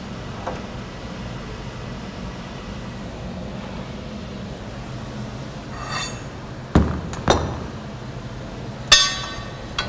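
Metal tools clanking on the forklift's steel frame: two sharp knocks about 7 seconds in, then a loud clink that rings on briefly near the end, over a steady low hum.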